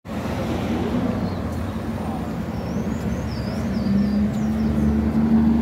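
Street traffic: car engines running as cars drive past, with a steady engine hum that grows a little louder in the second half.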